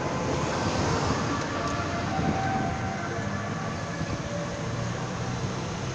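Steady road and wind noise from a camera riding along on a bicycle through light traffic.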